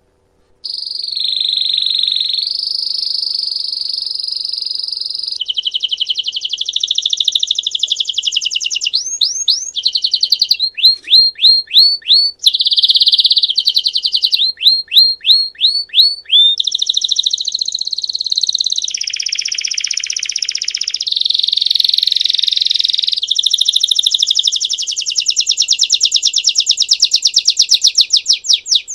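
Domestic canary of the Belgian line singing continuously in the bell-like 'campainha' song style, starting about half a second in: long rolling trills, a run of quick rising notes in the middle, and a fast rapid trill near the end.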